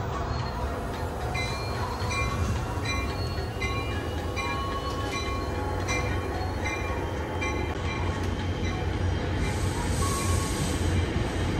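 NJ Transit diesel commuter locomotive running at the platform, its engine giving a steady low rumble, while a bell rings about twice a second for several seconds. A burst of hiss comes near the end.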